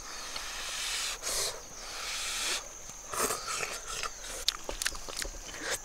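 Blowing on hot noodles held up on chopsticks, long airy puffs of breath, then slurping and chewing, with a few light clicks of chopsticks.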